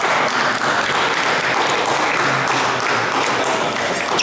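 Spectators applauding steadily: many hands clapping at once.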